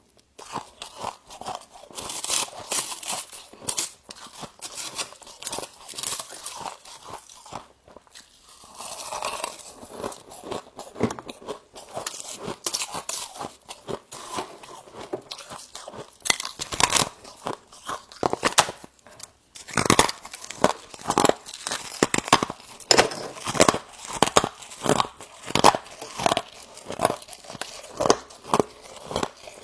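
Frost crunching and being chewed in the mouth, close up, in crisp irregular crunches; over the last third it settles into a steady chewing rhythm of about two crunches a second.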